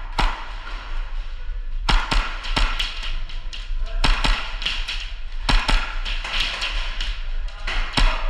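Sharp shots from an AAP-01 gas blowback airsoft pistol, about ten cracks at irregular intervals, some in quick pairs, over a steady low hum.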